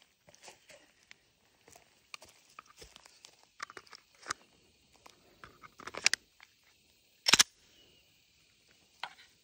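Metallic clicks and clacks of a Glock 17 pistol being handled and its slide worked. Near the end comes one sharp, much louder clack.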